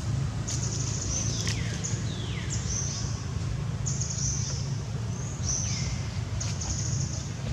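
Short high-pitched animal calls repeat about once a second, a few sliding downward in pitch, over a steady low hum.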